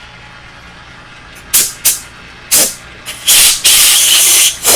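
Compressed-air blow gun fired in about six short hissing blasts, the longest lasting nearly a second near the end, clearing chips from a freshly reamed hole.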